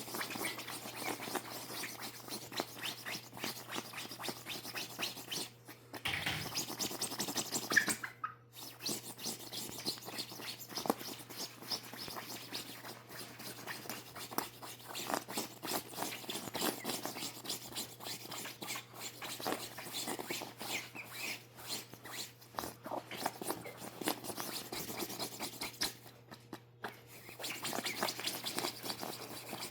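Fingers scratching through a chicken's feathers: a continuous run of rapid, irregular scratchy rubbing strokes.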